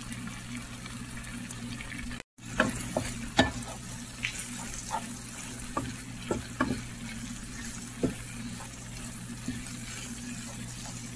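Tomato chutney sizzling gently in a frying pan while a wooden spoon stirs it, with scattered light knocks and scrapes of the spoon on the pan. A steady low hum runs underneath, and the sound drops out briefly about two seconds in.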